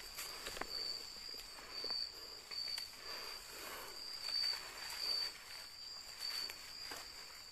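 Night insects trilling: a steady high-pitched trill that swells and fades in a regular rhythm, with a few faint soft rustles.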